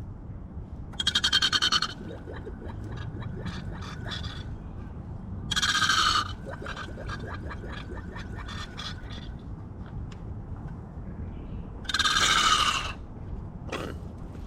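Ratchet wrench clicking: three quick runs of rapid ringing clicks about a second long, with slower single clicks between them as the handle is worked.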